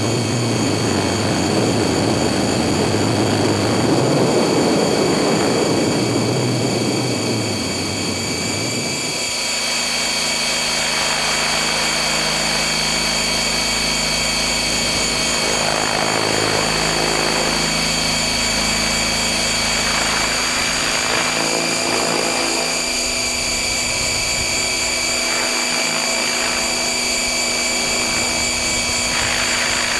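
Electric motor and 690 mm rotor blades of a stretched Align T-Rex 600 RC helicopter in flight, heard from directly beneath it: a steady high motor-and-gear whine over rotor noise. A heavy low rushing settles into a smoother hum about nine seconds in.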